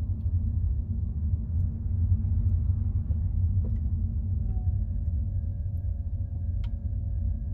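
Car driving along a road: a steady low rumble of engine and tyres, with faint tones that slide slightly up and down.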